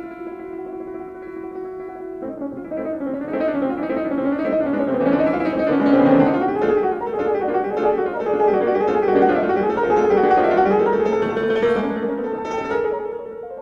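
Instrumental background music with piano and plucked strings: a held chord, then a busy run of notes from about two seconds in, easing off near the end.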